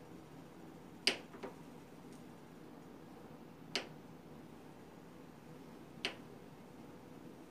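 A knife blade knocking on a wooden cutting board as it cuts through a block of butter: three sharp knocks a couple of seconds apart, the first followed by a fainter one.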